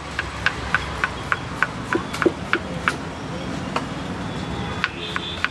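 Large kitchen knife chopping onions on a wooden cutting board: sharp knocks about three a second for the first few seconds, then a few slower strokes, over a steady low background rumble.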